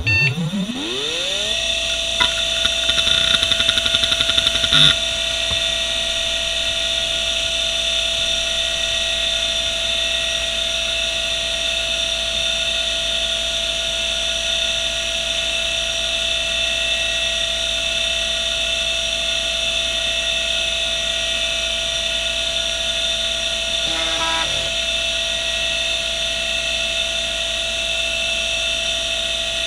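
Western Digital Caviar 1170 3.5-inch hard drive powering up: the spindle motor spins up in a rising whine over about a second and a half, then the heads tick rapidly for a few seconds before the drive settles into a steady whine with a harsh hiss from its rough spindle bearings. A short burst of head ticks comes near the end.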